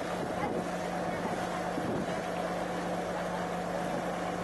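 Boat engine running steadily with a constant droning hum, heard from aboard the boat as it moves along the river.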